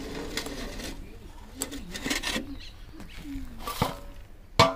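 Handling noise as the charcoal-laden lid comes off a metal biryani pot, with two sharp metal knocks near the end, the second the loudest. A bird coos in the background.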